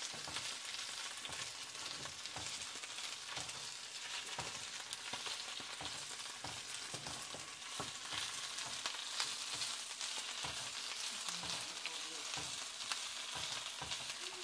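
Baby spinach and garlic sizzling in hot oil in a cast-iron skillet, a steady frying hiss, with frequent light clicks as the leaves are stirred with wooden chopsticks.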